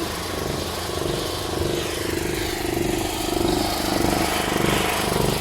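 A motor running steadily, with a fast, even pulse.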